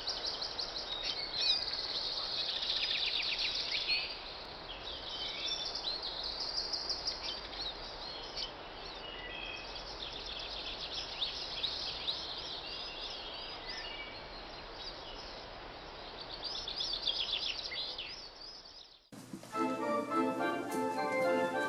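Many birds chirping and singing in quick high trills over a steady background hiss. About nineteen seconds in this cuts off abruptly and a small choir begins singing with organ.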